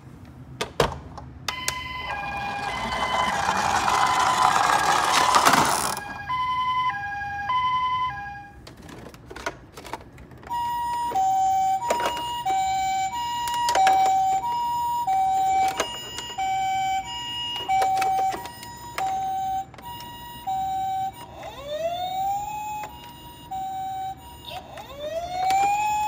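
Toy ambulance's electronic siren playing the Japanese two-tone 'pee-paw' pattern, high and low notes alternating about every half second. At first it sounds over the rushing noise of the toy's wheels rolling down a slope, and near the end it changes to a rising wail twice.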